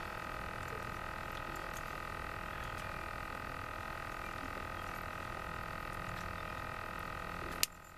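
A steady drone of several overlapping high tones, with faint clicks and ticks of pliers working a lure's treble hooks out of a bass's mouth. Shortly before the end a sharp click comes and the drone cuts off abruptly.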